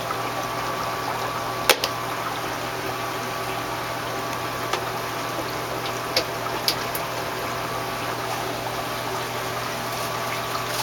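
Aquarium sump water running and air bubbling up through an algae scrubber's sliced airline, steady under a low hum. A few sharp clicks, the loudest about two seconds in.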